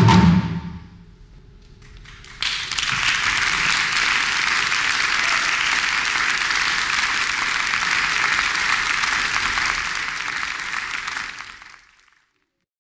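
Live percussion dies away in the first second. About two and a half seconds in, an audience breaks into applause, which runs steadily and fades out near the end.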